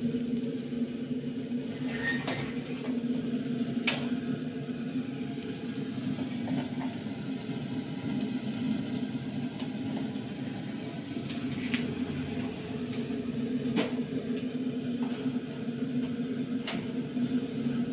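A steady low hum, with a few light knocks and clinks of kitchenware being handled, spaced a few seconds apart.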